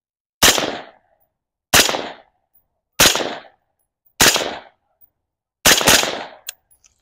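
Six shots from a suppressed AR-style rifle, fired one at a time about a second and a quarter apart, the last two close together, each a sharp crack with a short fading tail. The rifle is running an adjustable bolt carrier group fitted to cure over-gassing with the suppressor.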